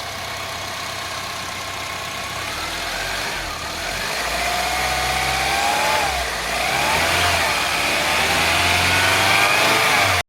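A car engine running and being revved, its pitch gliding up and down and growing louder, then cut off abruptly.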